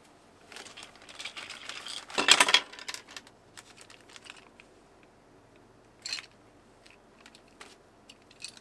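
Toy packaging being handled: a run of small clicks and crinkling rustles, with a louder rustling scrape about two seconds in, then a few separate taps.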